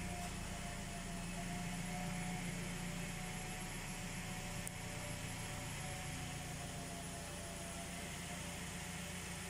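Steady mechanical hum with a few faint constant tones, unchanging throughout, and a single faint click near the middle.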